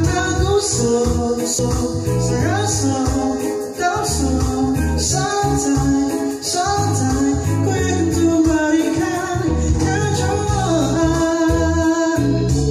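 A man sings into a handheld microphone over a Yamaha PSR arranger keyboard's accompaniment, with a steady beat in the bass.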